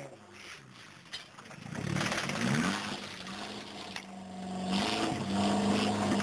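Air impact wrench and the running engine of a Volkswagen Scirocco TSI rally car during a pit-stop tyre change: a few clicks, short rising whirrs about two seconds in, then a steady hum that grows louder near the end.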